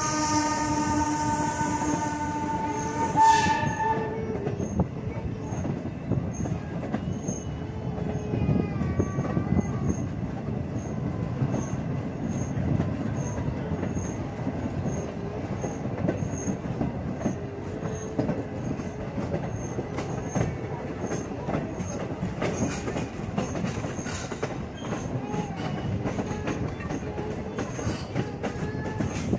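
Whistle of steam locomotive Norfolk & Western No. 475 sounding a sustained chord with a steam hiss, which cuts off about four seconds in. Then the train rolls on with rumble and clickety-clack from the wheels and rail joints, and a brief squeal of wheels a few seconds after the whistle stops.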